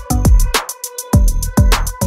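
Background electronic music with a fast, regular drum beat and bass notes that fall in pitch. The bass drops out for about half a second just after the middle.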